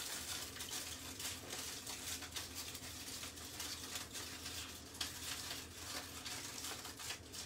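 Aluminium foil crinkling in a continuous, irregular crackle as hands fold and crimp it into a sealed parcel.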